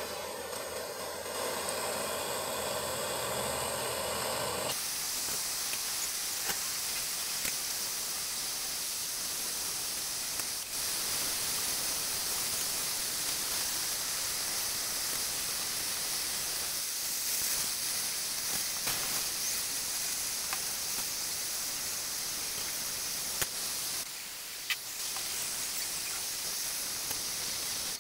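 Handheld gas torch flame hissing steadily as it melts gold in a small clay crucible. For the first five seconds or so a humming sound with a few steady tones is heard instead, before the hiss takes over.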